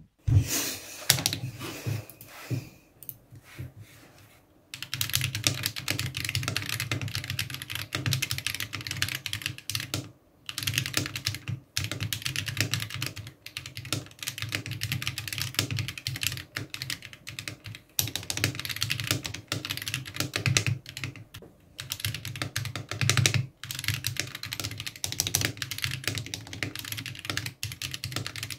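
Typing sound test on a custom 61-key mechanical keyboard built in a Gamakay K61 case with Akko CS switches, Everglide stabilizers and Cherry-profile keycaps. Scattered key presses for the first few seconds, then fast, continuous clacking keystrokes with a few brief pauses.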